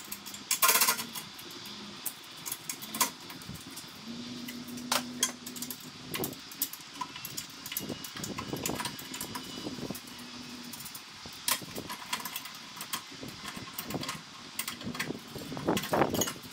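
Scattered metal clicks, taps and clanks of hand tools and loosened parts as the tuck-away exhaust muffler is unbolted from the air-cooled VW Beetle engine. A low steady hum comes and goes twice.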